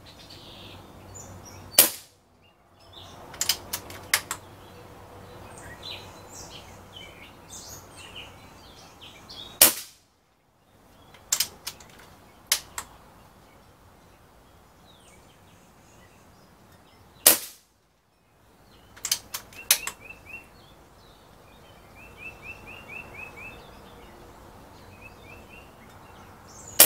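Umarex Gauntlet .22 PCP air rifle firing four fairly quiet shots about eight seconds apart, each a sharp crack. A second or two after each shot comes a short run of small clicks as the bolt is worked to chamber the next pellet. Birds chirp faintly in the background.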